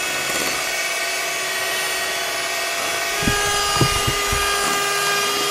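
Electric hand mixer running steadily at a constant speed, its beaters whipping egg whites and sugar into a stiff foam in a glass bowl. There are a few brief knocks about three to four seconds in.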